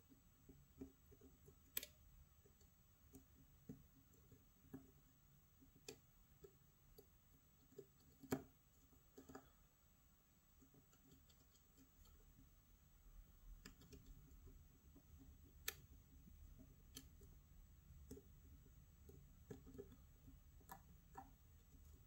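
Faint, irregular metallic clicks and ticks from a hook pick probing the pins inside a challenge lock cylinder under tension, with a few sharper clicks about two, eight and sixteen seconds in.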